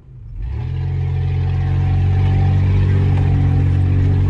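Off-road 4x4's engine running steadily as it drives along a rutted dirt track, a loud low drone that swells in about half a second in and then holds.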